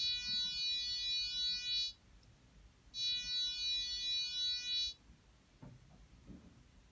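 Arduino fire-alarm buzzer sounding two high-pitched electronic beeps, each about two seconds long, a second apart. It is the alarm set off by the thermistor reading above its temperature limit after being warmed by a finger.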